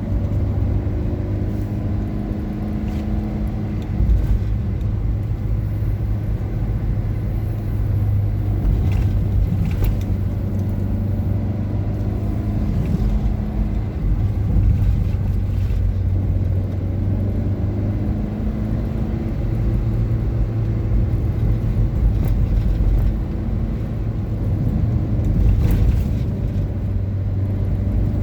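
Car underway on the road, heard from inside the cabin: a steady low engine hum and road noise, the engine's pitch wavering slightly now and then, with a few faint knocks.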